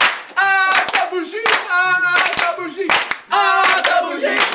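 A group of young people singing a chant in three long held notes, over loud hand clapping.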